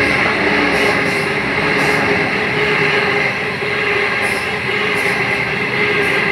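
Sydney Trains double-deck electric train passing close along the platform: a loud, steady rumble of wheels and cars with a constant high-pitched whine above it.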